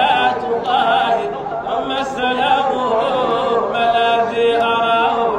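A young man's solo voice chanting Arabic verse into a handheld microphone, with long held notes that bend and waver in pitch.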